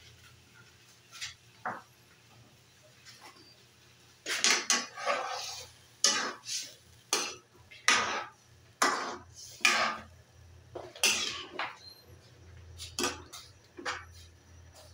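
A metal spoon stirring chicken liver and gizzard in soy-sauce broth in a metal wok, scraping and clanking against the pan. The strokes start about four seconds in and repeat one or two times a second.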